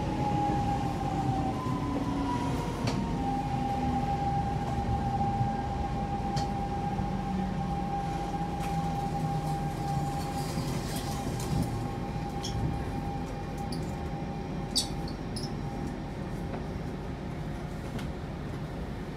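Siemens C651 metro train's GTO-VVVF traction motors whining on a slowly falling pitch as the train brakes into the station, over a steady rumble of wheels on the track. A few faint ticks sound in the second half.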